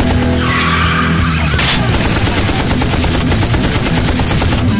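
Rapid machine-gun fire sound effects, a fast continuous rattle of shots, with a falling swoop about half a second in and a short loud blast near the two-second mark.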